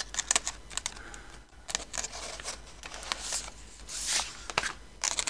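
A clear plastic sleeve rustling and crinkling in several short, uneven bursts as a tightly packed book is slid and tugged out of it.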